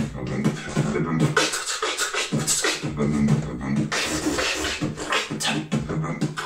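Solo beatboxing: a quick run of sharp mouth-made percussion sounds, with a low held hum under them in parts.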